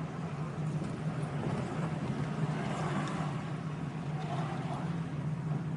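Car interior noise while driving: a steady low engine hum with road and tyre noise.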